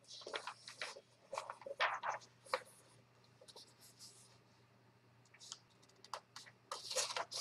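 Faint rustling and crinkling of newspaper pages being handled and turned, in irregular bursts during the first couple of seconds and again near the end.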